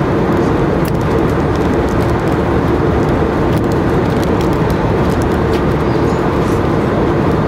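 Steady cabin noise of an Airbus A320-200 in flight: an even roar of airflow and engines with a low hum underneath, unchanging throughout.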